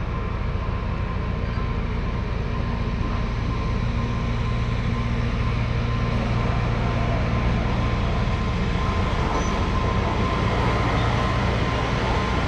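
Alishan Forest Railway diesel locomotive running steadily as the train is worked on the track, with a continuous low engine hum that grows slightly louder over the seconds.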